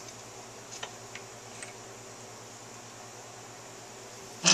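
A steady low background hum with a few faint clicks as the C-clamp and sockets pressing bearings out of a dirt bike's aluminium suspension linkage rocker are handled. A sudden loud clatter near the end.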